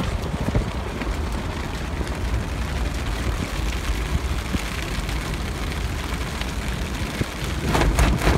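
Steady rush of wind and rain on a tarp stretched over a moving Jeep's open top, heard from inside the cabin over a low road rumble. Near the end the tarp gives a louder burst of crackling rustles.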